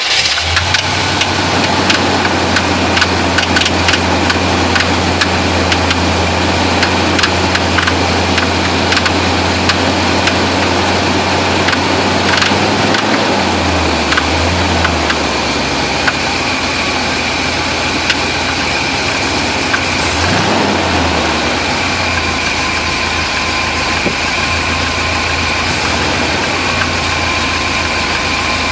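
350 V8 engine idling with a knocking sound that the owner cannot place, running rough at idle. It is revved briefly twice, about halfway through and again about two-thirds in, before settling back to idle.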